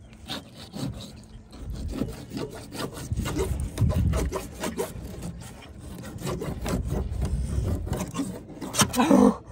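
Fillet knife sawing back and forth through a remora's tough, leathery skin and flesh, a long run of short scraping strokes; the knife is dull. A single louder short sound near the end.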